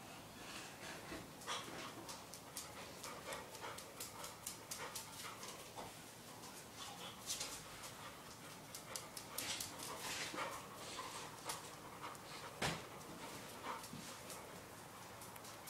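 Young springer spaniel panting, with scattered sharp clicks and taps throughout; the loudest click comes about twelve and a half seconds in.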